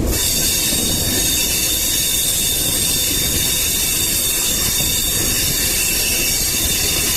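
MEMU electric train's wheels squealing against the rails on a sharp curve: several steady high-pitched tones held over the continuous rumble of the wheels on the track.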